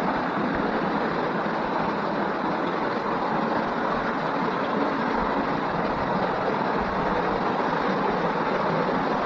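A steady, even rushing noise that runs without a break.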